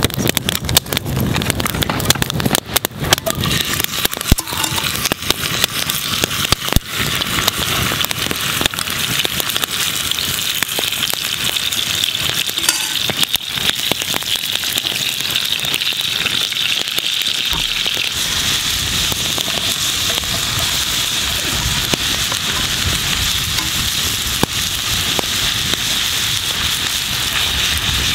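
Cubed steak frying in hot bacon grease in a cast-iron skillet over a campfire: a steady sizzle that sets in a few seconds in and grows louder, with sharp crackles and knocks in the first few seconds.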